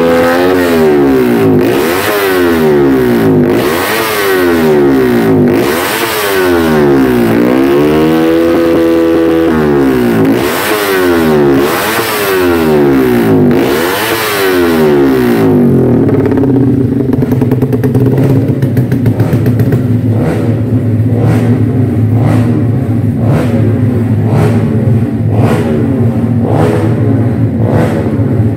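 Racing motorcycle engine revved again and again through an aftermarket racing exhaust, the revs falling and rising about every two seconds. About halfway through it settles to a loud, lumpy idle that pulses about once a second.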